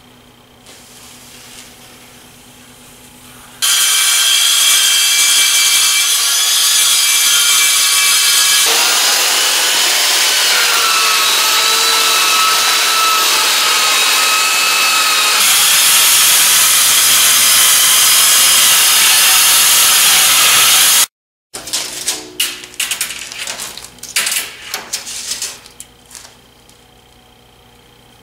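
Handheld power saw cutting a sheet of aluminium: a loud, steady, high-pitched screech that starts a few seconds in and runs for about seventeen seconds. It is followed by a run of sharp clatters and knocks from the metal sheet being handled.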